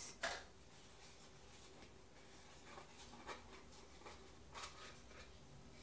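Faint scraping and rustling of a small cardboard box being opened by hand: a few soft, separate scratches and light clicks against near silence.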